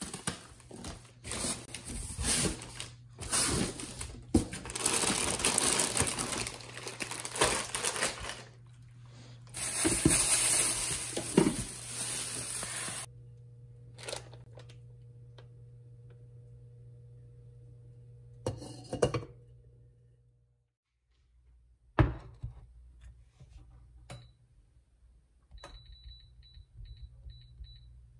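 Clattering and knocking of objects being handled, over a steady low hum that stops about two-thirds of the way through. Later there is a single sharp knock, and a few faint short high beeps near the end.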